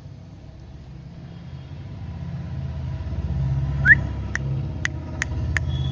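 A low engine rumble that grows louder over a few seconds, with a short rising chirp about four seconds in, followed by a run of about five sharp clicks.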